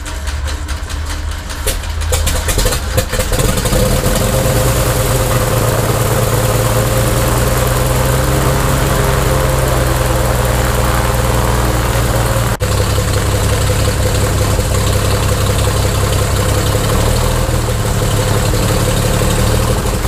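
Cessna 310's six-cylinder Continental engine being cranked and catching about two to three seconds in, then running steadily at idle, with one brief dip about twelve seconds in. It is running on the right magneto alone, with the P-leads disconnected, because the left magneto is not firing.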